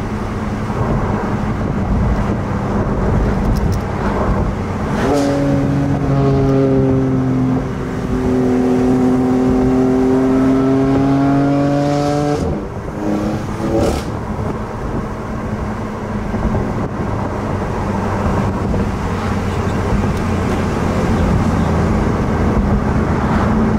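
BMW M4 GTS twin-turbo straight-six under way, heard from inside the cabin over road noise. About five seconds in the engine note grows much stronger and holds for about seven seconds, then cuts off abruptly, followed by a couple of sharp cracks.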